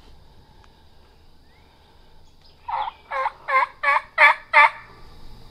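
Turkey calling: a series of six loud, evenly spaced notes, about three a second, beginning around the middle.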